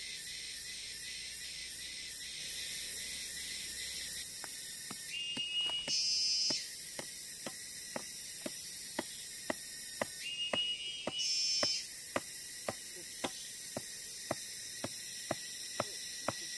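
Forest insects buzzing in a steady high-pitched chorus. From about four seconds in comes a regular ticking about twice a second, and twice a short rising call.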